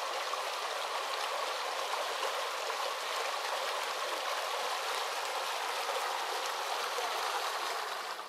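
Running water of a stream: a steady, even rush.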